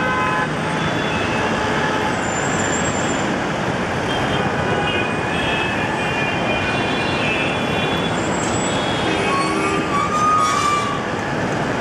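Dense mixed city traffic of auto-rickshaws, buses, trucks and motorbikes: a steady din of engines and tyres, with scattered short horn toots and a longer horn blast about ten seconds in.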